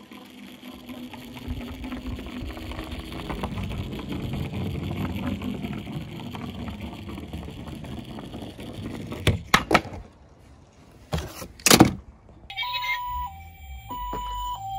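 Plastic wheels of a toy wheel loader rolling down a wooden plank, a rumbling noise that builds for several seconds, then a few sharp plastic knocks. Near the end an electronic hi-lo ambulance siren starts, steadily alternating between two tones.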